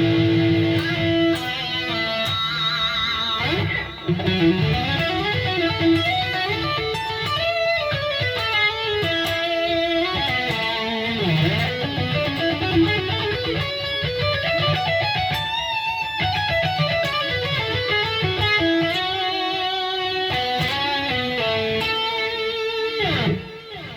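Electric guitar with a coil-split Seymour Duncan Omega pickup, played direct through a Line 6 POD HD amp modeller: a lead line of sustained notes with vibrato and slides up and down the neck, ending in a long falling slide.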